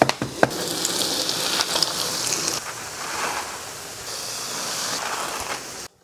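Breaded spinach-and-potato patties (spinacine) shallow-frying in a pan of oil, the oil sizzling steadily with a light crackle. The sound cuts off suddenly near the end.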